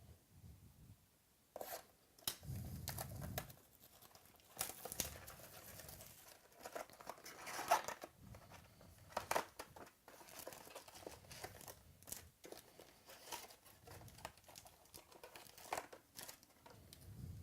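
Plastic wrapping crinkling and tearing as a sealed box of trading cards is unwrapped and opened, in irregular crackles and rips.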